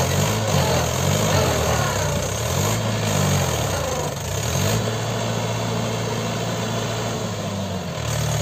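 Mahindra 575 DI tractor's four-cylinder diesel engine running, its pitch rising and falling over the first few seconds, then holding steady.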